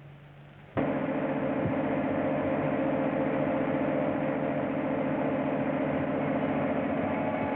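A train running along the track, loud and steady, cutting in abruptly under a second in after a quiet moment.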